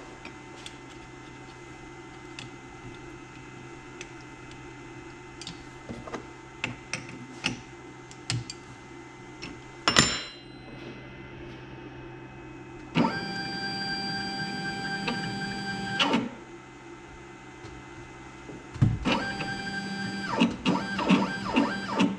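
Small clicks and taps of a router bit being changed, with one sharp click about ten seconds in. Then the X-Carve CNC's stepper motors drive the router down on the Z axis: a steady whine for about three seconds, then short stop-start bursts near the end as it is jogged down toward the workpiece.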